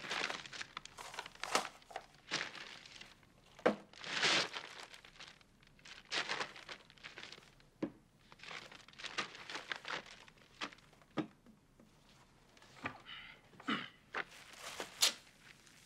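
Large brown paper grocery bag crinkling and rustling in irregular bursts as food is pulled out of it, with a few soft knocks as items are set down on a table.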